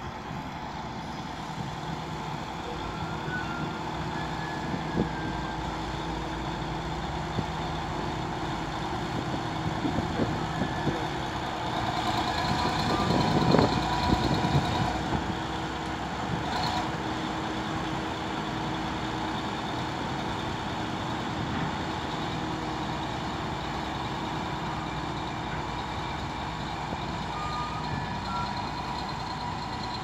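BEML BD80 crawler bulldozer running as it pushes landfill waste with its blade, the engine noise steady and growing louder about halfway through as the machine passes close.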